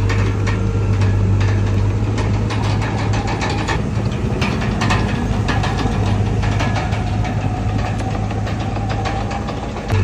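Bulldozer's diesel engine running steadily, with frequent short metallic clanks over it and a faint whine slowly rising in pitch over the second half.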